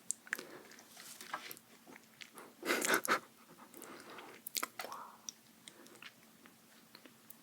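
Close-miked ASMR eating: biting and chewing with sharp mouth clicks and smacks, and a loud crunchy bite about three seconds in.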